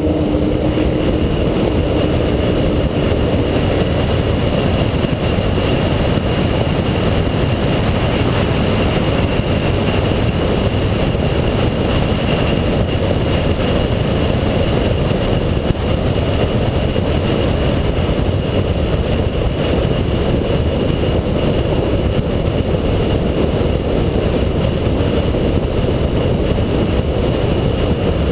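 Steady wind rush over an outside-mounted camera, mixed with the drone of a 2007 Shelby GT500's supercharged 5.4-litre V8 cruising at speed on a straight. A pitched engine tone fades out in the first few seconds, after which the sound stays even.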